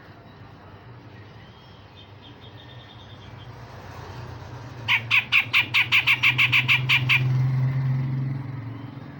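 Cucak jenggot (grey-cheeked bulbul) singing: a faint quick run of notes, then about halfway a loud rapid volley of about a dozen sharp notes lasting a couple of seconds, over a low steady hum.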